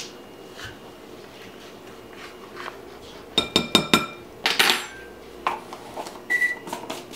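Plastic measuring spoon knocking against a glass mixing bowl: a quick run of about five clinks a few seconds in, then a short scrape and a few light clicks and taps near the end.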